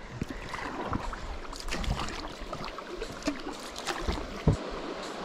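Rushing river water from rapids ahead, a steady wash of noise, with a few light knocks and taps around the kayak.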